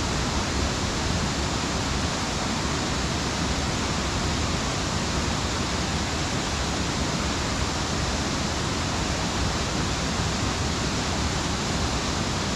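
A waterfall rushing steadily: an even, unbroken hiss of falling water.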